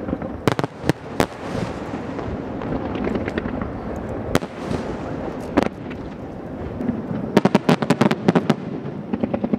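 Fireworks display: shells bursting with sharp bangs over a continuous rumble and crackle, a few single bangs in the first seconds, then a rapid string of cracks about seven seconds in.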